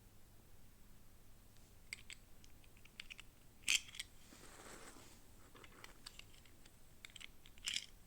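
Toy packaging and small plastic parts being handled: scattered light clicks and taps, with a louder crackle about midway and another near the end, and a soft rustle after the first crackle.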